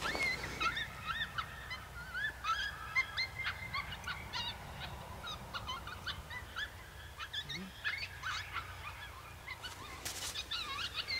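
Many birds chirping and calling over one another in short rising and falling notes, with a brief burst of noise about ten seconds in.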